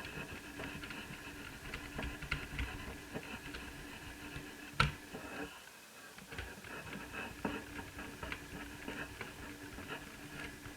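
Small irregular clicks, taps and rustles of a laptop's plastic parts and tools being handled during reassembly, with one sharper click about five seconds in, over a faint steady hum.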